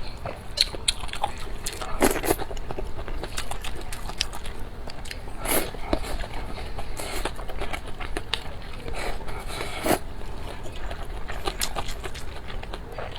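Close-miked eating: biting and chewing with many short wet clicks and crunches, strongest about two, five and a half and ten seconds in.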